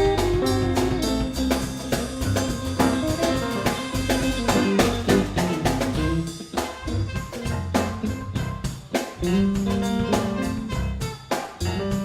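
A band of drums, bass, keyboards and guitar playing an instrumental passage with a steady drum beat and no singing.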